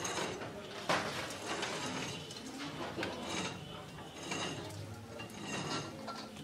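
Scattered clinks and knocks of a stainless steel bowl being handled as live stinging catfish are grabbed out of it, the loudest about a second in.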